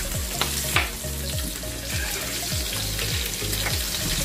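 Food frying in a pan, a steady sizzle, over background music with a bass beat about twice a second.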